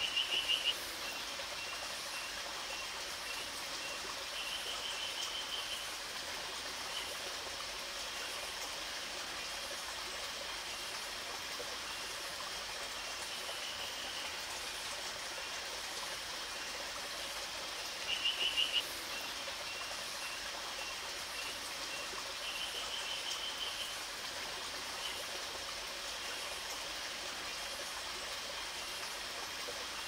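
Steady rush of a stream. Over it come short, rapid rattling frog calls, one at the start and one about 18 seconds in, each followed a few seconds later by a longer, softer rattle, with faint ticks at the same pitch in between.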